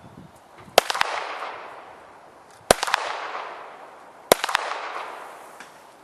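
Pistol shots on an outdoor range: three loud reports about two seconds apart, each followed closely by a quieter crack and a long echoing tail.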